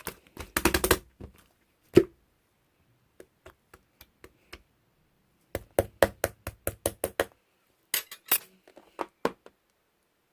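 A series of sharp taps and clicks: a loud single knock about two seconds in, a quick run of about eight taps around six to seven seconds, and a few more near the end.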